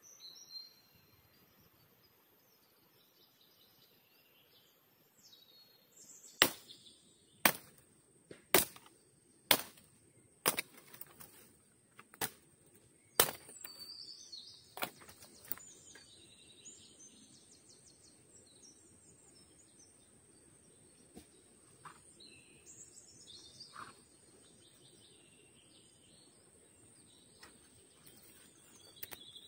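About ten sharp chopping strikes, roughly one a second, from a blade cutting into wood, followed by scattered bird chirps over a faint steady high tone.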